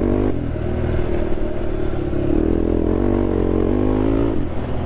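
Honda TRX sport quad's engine running while riding off-road. Its pitch rises as the throttle opens near the start and again for a couple of seconds in the second half, then drops back.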